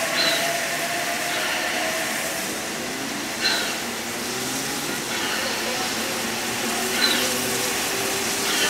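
NSW C32-class steam locomotive standing with steam hissing steadily, a short sharp sound coming about every three and a half seconds, over the chatter of a crowd.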